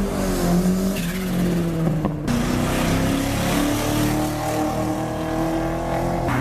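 Sports car engine running loudly at raised revs, its pitch sagging over the first couple of seconds, then higher and steady after a brief break.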